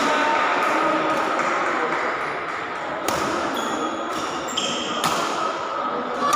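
Badminton racket strikes on a shuttlecock, two sharp hits about two seconds apart, with short high squeaks of shoes on the court floor between them, over the steady background noise of a busy sports hall.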